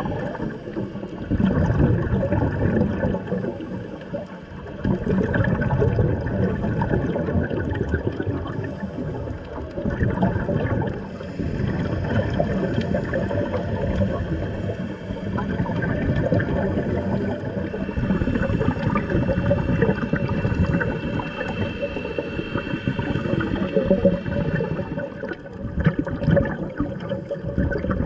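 Scuba regulator exhaust bubbles heard underwater: a continuous muffled gurgling and rushing that swells and fades every few seconds as the divers breathe out.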